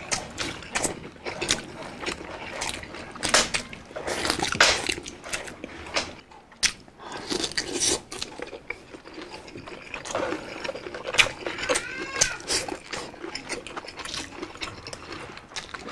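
Close-miked eating by hand: wet chewing, lip smacks and finger-sucking of boiled beef, bone marrow and soft boiled cabbage, with many small irregular clicks.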